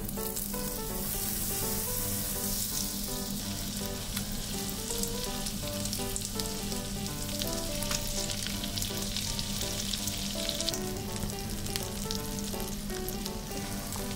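Butter sizzling in a frying pan with square pieces of mochi frying in it. The sizzle builds about a second in, then stays steady.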